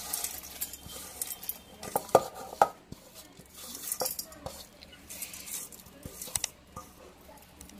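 Roasted mint leaves and garlic scraped by hand from a steel plate into a steel mixer jar: several sharp metal clinks, with dry rustling scrapes between them.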